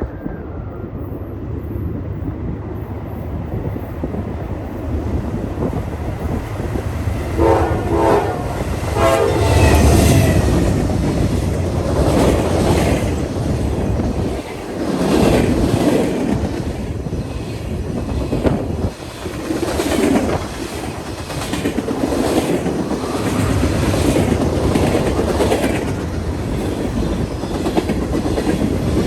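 Train passing, its horn sounding briefly about eight seconds in, then wheels clicking over rail joints as the cars roll by.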